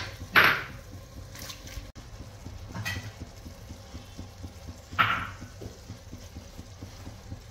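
Silicone spatula stirring a thick, liquidy vegetable curry in an enamelled cast-iron pot: wet sloshing, with two louder strokes about half a second in and about five seconds in.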